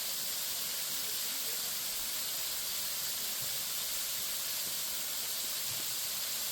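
Waterfall's steady rush of falling water, flowing strongly after heavy rain a few hours before.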